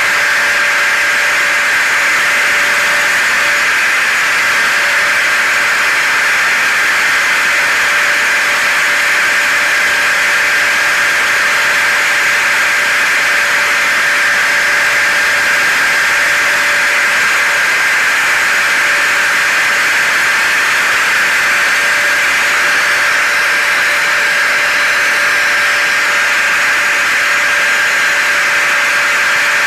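Hair dryer and vacuum cleaner running together as a steady white-noise blend: an even rushing hiss with a constant high motor whine.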